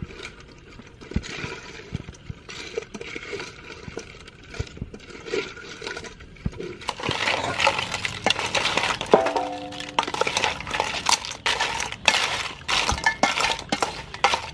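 Pieces of blue crab shell being tossed with a wooden spoon in a stainless steel bowl: shells clattering and clinking against the steel and each other, with scraping. Sparse at first, then louder and busier from about seven seconds in, with the bowl ringing briefly about nine seconds in.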